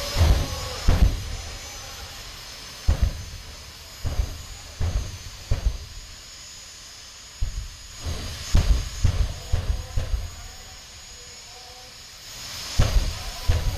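Jet dragster's turbine engine running with a steady high-pitched whine and hiss, broken by a dozen or so irregular low thumps.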